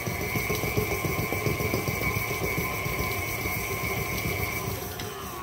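KitchenAid stand mixer running, its beater creaming butter and sugar: a steady high motor whine over a low rumble. Near the end the mixer is switched off and the whine slides down as the motor winds down.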